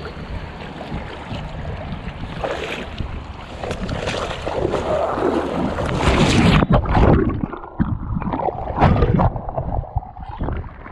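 Wind on the microphone over shallow water, then a loud burst of splashing and scuffling as a wading person trips on rocks and falls into the shallows, followed by more uneven splashing as he struggles in the water.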